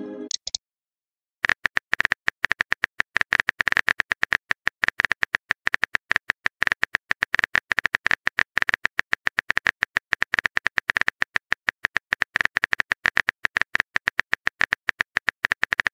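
Phone-keyboard typing sound effect: a fast, even run of clicks, several a second, starting about a second and a half in. At the very start, the short tail of a message-sent sound.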